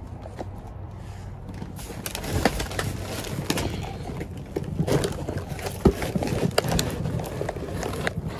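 A cardboard box of bananas and plastic-wrapped vegetables being shifted by hand: a run of rustles, scrapes and knocks begins about two seconds in, over a steady low hum.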